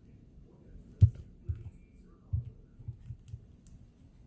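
Slime being squeezed and handled: irregular soft low thumps, the loudest about a second in, mixed with small crackling pops.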